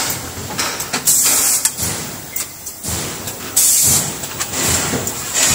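A full-servo PET bottle blow moulding machine running: loud hisses of compressed air about a second in and again past three and a half seconds, over clicks and clunks from the preform-handling mechanism.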